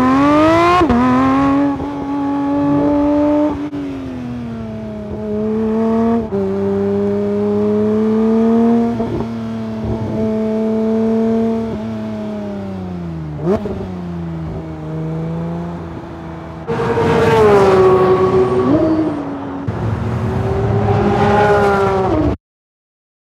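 Porsche 911 GT3 (992) four-litre naturally aspirated flat-six engine revving hard through the gears on track. The pitch climbs and falls away sharply several times, with a quick dip and jump in revs about thirteen seconds in. The two loudest high-revving runs come near the end, followed by a sudden cut-off.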